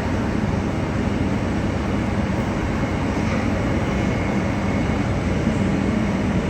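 Jet airliner engines running with a steady rumble and no change in pitch.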